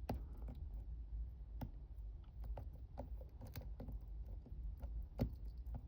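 Faint, irregular clicks and light scraping of a lock pick and tension tool working inside the keyway of a Sta-Lok lock, about one sharp click every second or so.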